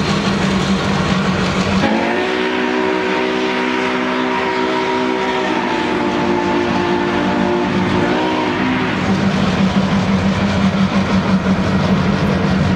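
Union Pacific E9 diesel units rolling past with a steady rumble. About two seconds in, the train sounds one long multi-tone signal blast that lasts about seven seconds, its chord shifting slightly partway through.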